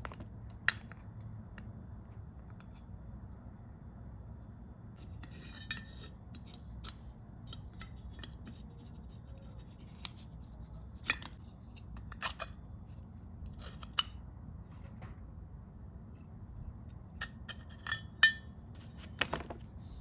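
Small metal parts and hand tools clicking and clinking now and then as they are handled and set down, with a brief rattle about five seconds in and a cluster of sharper clinks near the end, over a steady low hum.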